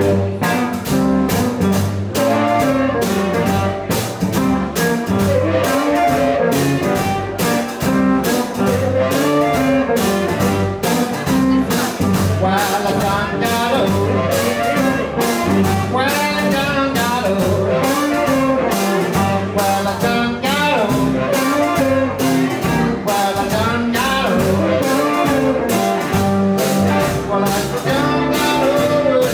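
Blues band playing live: harmonica lead over electric guitar, upright bass and drums keeping a steady beat.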